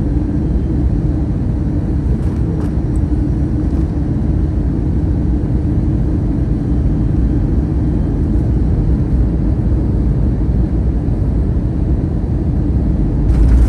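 Airbus A320 cabin noise on the approach to landing: steady engine and airflow rumble with a constant low hum. Near the end the rumble turns suddenly louder and rougher.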